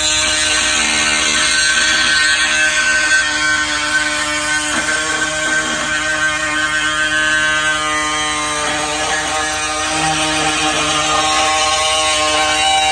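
Hand-held pneumatic cutting tool running steadily with a pitched whine as it cuts around the edge of a hole in a sheet-metal front fender, opening it up for a snorkel.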